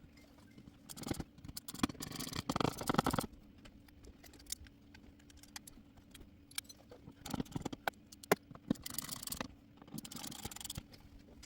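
Scraping, rattling and sharp clicks of a plastic smoke-detector mounting base being fastened to the wall by hand, in several short bursts, over a faint steady hum.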